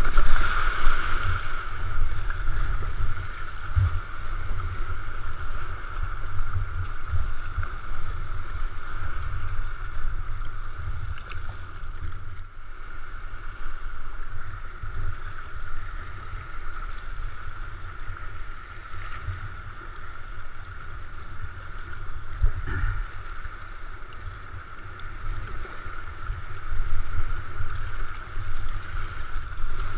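Sea kayak paddled through choppy water: waves splashing against the hull and wind rumbling on the microphone, with a steady hiss of moving water. A wave breaking over the bow makes it loudest about a second in.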